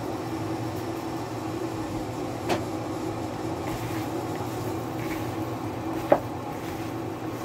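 A steady low mechanical hum underneath the sound of a gloved hand tossing raw chicken wings in a plastic mixing bowl. Two sharp knocks stand out, about two and a half and six seconds in, the second one louder.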